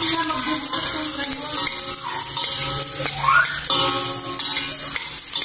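Chopped red onions sizzling in hot oil in a stainless steel pot, with a spoon stirring them and scraping the pot.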